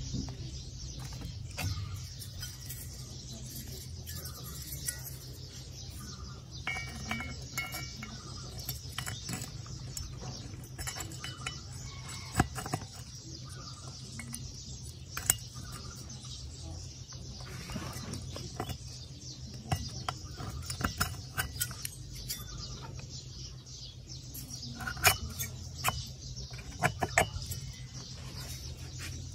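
Scattered light metallic clicks and clinks from the piston and finned cylinder of a TL43 two-stroke brush-cutter engine being handled and fitted together by hand, with a few sharper knocks about halfway through and near the end.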